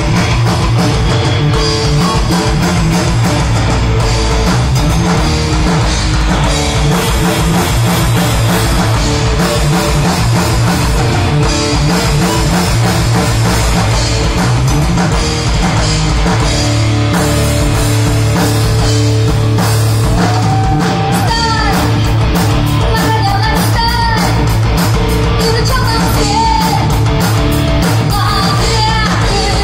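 Rock band playing live through stage speakers: electric guitars, bass and drum kit, with a woman's voice starting to sing about two-thirds of the way in.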